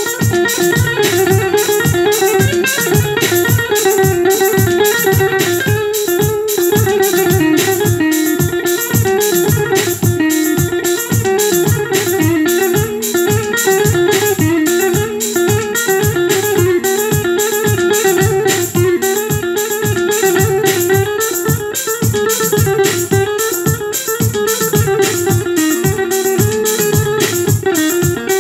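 Yamaha arranger keyboard playing a plucked Turkish buzuq voice: a fast, continuous run of plucked notes.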